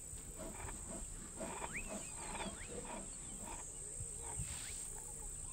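Male lion eating a fresh kill: irregular chewing, crunching and tearing at the carcass, over a steady high insect drone.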